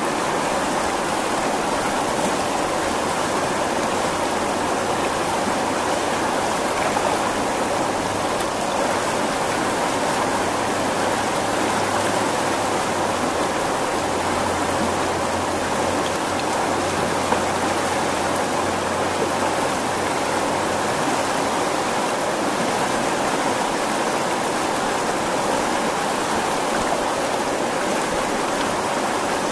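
Fast-flowing river rushing and splashing over rocks and riffles at its bank: a steady, unbroken rush of water.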